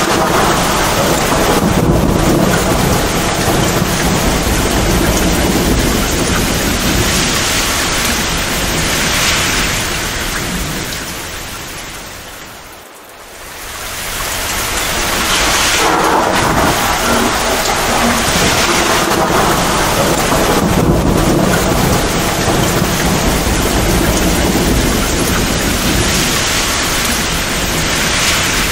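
Torrential rain pouring steadily, with low rolling thunder underneath. About halfway through the sound briefly fades down and swells back up.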